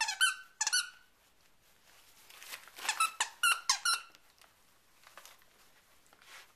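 Squeaker in a red plush dog toy squeaking as a dachshund bites down on it. There are three squeaks in the first second, then a quick run of about six squeaks from about two and a half to four seconds in.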